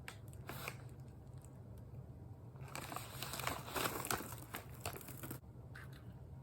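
A popcorn snack bag crinkling as it is handled and a hand rummages inside, in irregular crackly spurts that are busiest about three to four seconds in.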